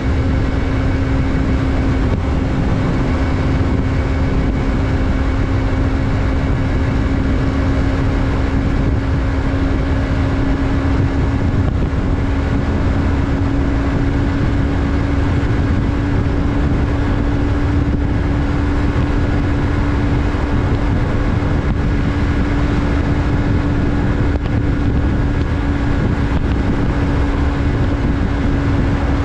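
Yamaha MT-03's 321 cc parallel-twin engine running at a steady cruise, its note holding one pitch, over a low rumble of wind and road noise.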